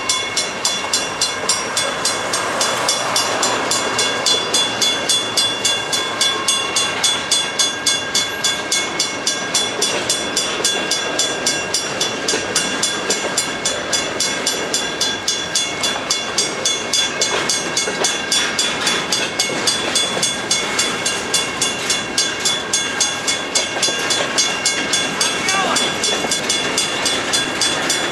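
Boxcars of a freight cut rolling slowly past on the rails, over a grade-crossing bell ringing at an even rate of about two to three strikes a second.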